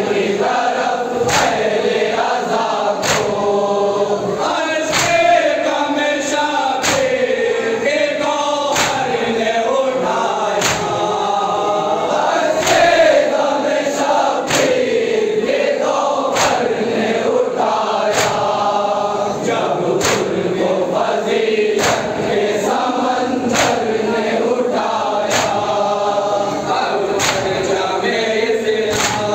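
A large group of men chanting a noha (Urdu mourning lament) in unison, with sharp hand-on-chest slaps of matam landing together on a steady beat, the strongest about every two seconds.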